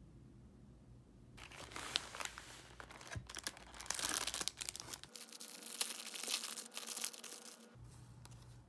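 Thin clear plastic food wrapper crinkling and being torn open by hand. It starts about a second and a half in, comes in a run of sharp crackles, and stops shortly before the end.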